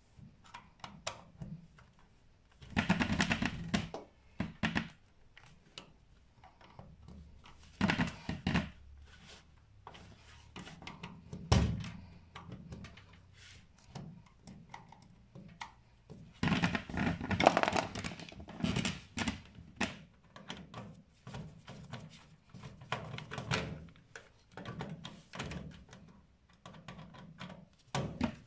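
Screwdriver clicking and scraping on the terminal-block screws of a freestanding electric cooker, with gloved hands knocking and rubbing against the cooker's metal back, in irregular bursts and one sharp knock.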